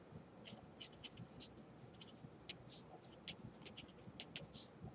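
A pen writing on paper: a run of short, faint strokes, several a second, as words are written out by hand.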